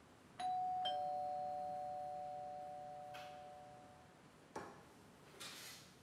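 Two-tone doorbell chime, a ding-dong whose second note is lower than the first, ringing out and fading over about three seconds. Then comes a light knock of a mug set down on the counter, and a short scrape as a chair is pushed back.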